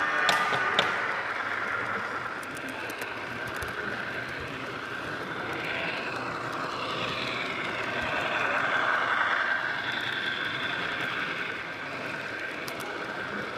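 HO-scale model train running along the layout track, heard from a camera riding on the train: a steady whirring with a whine that slowly rises and falls, and a few faint clicks near the end.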